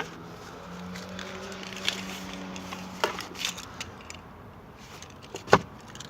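Skoda Superb glovebox and dashboard trim being refitted after a cabin air filter change: a few sharp plastic clicks and knocks, the loudest about five and a half seconds in, over a faint steady hum.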